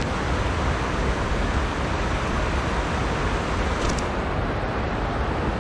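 Steady rush of flowing stream water close to the microphone.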